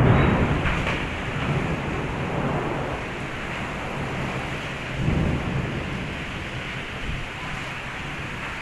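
Heavy rain falling steadily under rolling thunder. A low rumble fades over the first couple of seconds, and another swells up about five seconds in.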